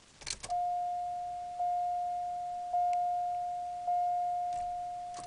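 A short click, then the 1986 Buick Park Avenue's dashboard warning chime: a single bell-like tone struck four times, about one a second, each strike ringing and fading.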